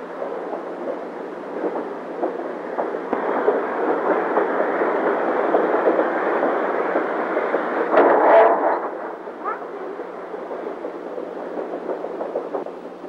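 Train running on the rails: a steady rumble that builds over the first few seconds, with a brief louder pitched sound about eight seconds in, after which the rumble drops back.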